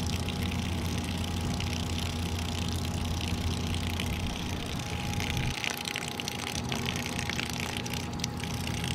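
Small battery-powered water pump of a Dometic Go hydration faucet running with a steady hum, while a thin stream of water pours from the jug's spout and splashes onto grass. The deeper part of the hum drops away a little past halfway.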